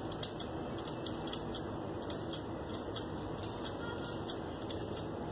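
Large tailor's shears snipping into a fabric bodice piece, a dozen or more short crisp cuts at an uneven pace over a steady hiss, as the slit for a zip is cut up to the marked line.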